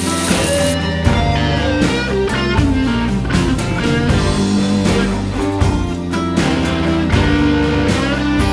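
Guitar-led rock music with a steady beat. Under it, the sizzle of cicadas frying in a pan cuts off suddenly just under a second in.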